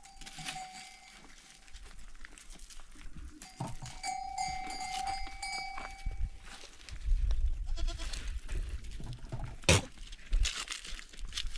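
Goats and sheep of a herd, with a long steady ringing tone twice and a sharp knock near the end.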